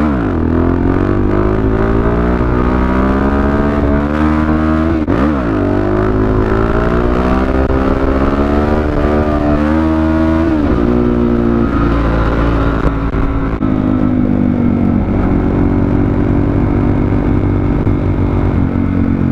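Supermoto motorcycle engine under way, heard close from the rider's seat: the revs drop sharply at the start, dip and climb again twice through gear changes, rise steadily, then settle into an even cruise for the last several seconds.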